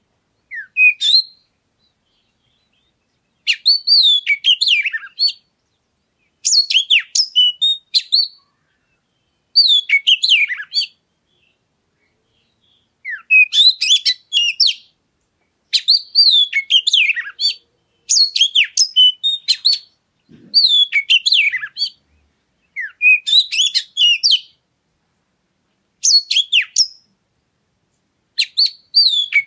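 Oriental magpie-robin (kacer) singing: a string of loud, varied phrases of high whistles and quick rising and falling notes, each a second or two long, with short silences between them.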